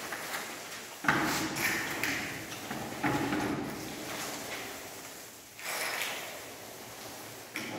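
Paint rollers on extension poles rolling wet paint up and down a wall, a sticky rolling swish. Each stroke starts abruptly and fades out, about every two seconds, four times.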